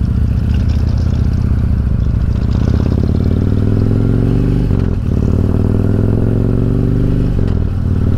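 Harley-Davidson V-twin motorcycle engine pulling away and accelerating, its pitch rising through each gear, with upshifts about five seconds in and again near the end.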